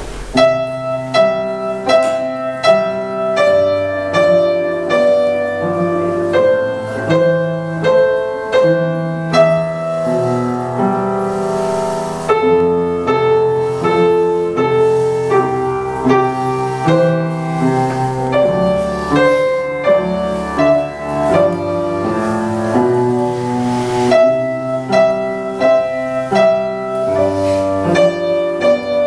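Upright piano playing a simple piece: a melody of separate struck notes over a slower line of held bass notes, at an even, unhurried pace.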